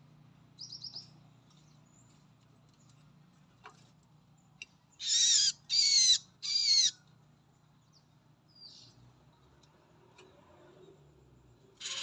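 A small bird's distress calls: three loud, harsh, wavering calls in quick succession, after a short run of four quick high chirps. The caller is the trapped female cinereous tit (gelatik batu) as a hand reaches in and grabs it inside the trap cage.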